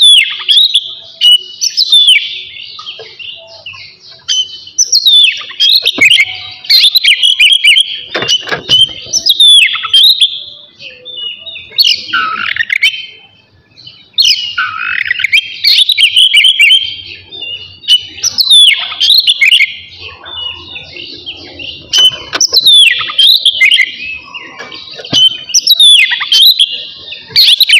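Oriental magpie-robin singing: loud, varied whistled phrases and quick chirps, many notes sweeping up or down, repeated with short pauses.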